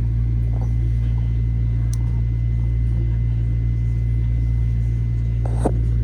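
Metro-North M7A electric train running, heard inside the car: a steady low rumble with a faint, steady high tone over it, and one short knock near the end.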